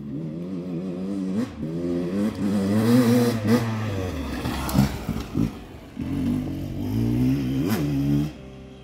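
Beta 300 RR Racing two-stroke enduro motorcycle riding hard across grass, its engine revving up and down repeatedly as the throttle is worked, with brief throttle-offs around the middle. The engine sound cuts off suddenly near the end.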